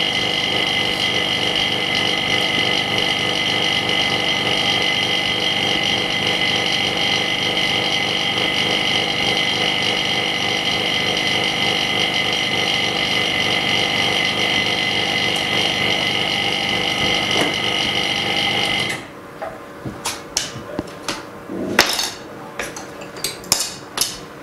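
LCD separator machine's vacuum pump running steadily, then cutting off suddenly about 19 seconds in, followed by a few sharp clicks and knocks.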